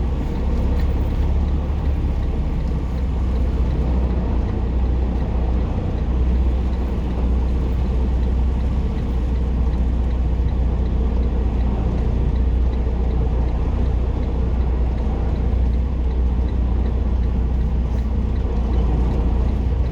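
Semi truck's diesel engine running steadily, a constant low drone with no change in pitch.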